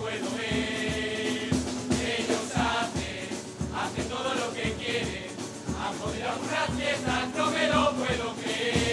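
A carnival murga chorus: a group of men singing together, with percussion beating a steady rhythm underneath.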